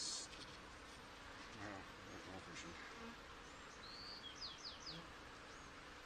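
Honeybee colony humming steadily over an open hive box as a frame is lifted out, with a short knock at the very start and a few quick high chirps about four and a half seconds in.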